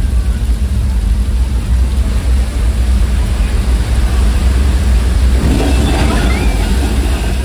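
Flash-flood special effect: a torrent of water released down a street set, heard as a deep steady rumble that swells into a loud splashing rush about five seconds in as the wave breaks close by.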